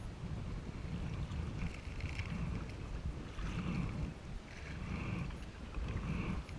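Kayak paddle blades dipping and splashing in the water in a steady rhythm, about one stroke every second and a half, over low wind rumble on the microphone.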